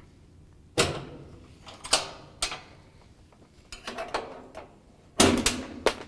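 Flathead screwdriver prying the metal retaining spring clips out of a Whirlpool direct-drive washer's cabinet: a series of sharp clicks and snaps, the loudest cluster about five seconds in.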